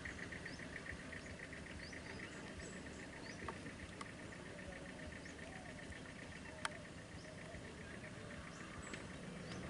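Faint insects trilling in a fast pulsing rhythm that fades over the first few seconds, with scattered short bird chirps and one sharp click about two-thirds of the way through, over a low steady rumble.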